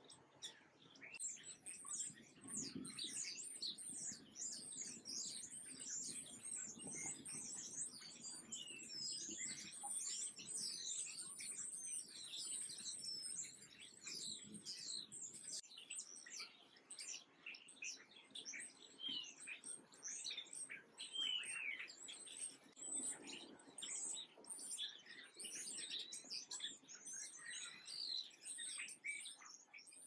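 Many small birds chirping, a dense continuous chatter of short high chirps and trills that overlap one another.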